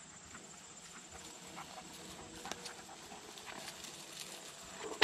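Onewheel XR electric self-balancing board ridden on grass: faint ticks and rustle, then a sudden loud thump near the end as the board cuts out and drops.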